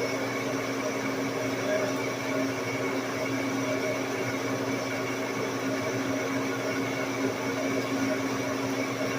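Large metal-turning engine lathe running steadily, a constant hum with a few steady tones and no chip-breaking knocks.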